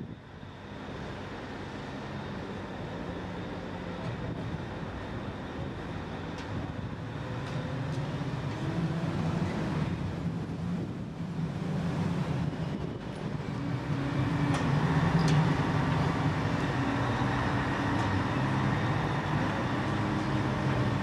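Heavy diesel engine of construction machinery running steadily under load, its pitch shifting a little, growing louder about halfway through and again later, with a few faint metallic knocks.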